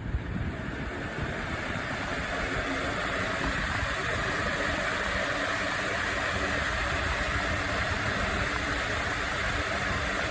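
Pelonis 20-inch five-blade box fan running, a steady rush of air with a low motor hum. It builds up over the first second or two, then holds even.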